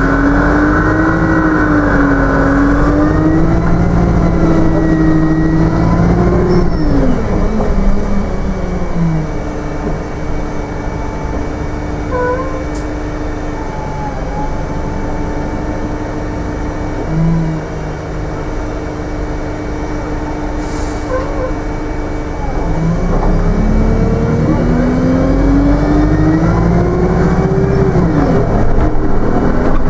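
Wright StreetLite Max bus heard from inside the passenger saloon: the engine and drivetrain pull with pitch rising and falling through the gears, ease to a quieter, steadier running about eight seconds in, then pick up again with a rising pitch about two thirds of the way through.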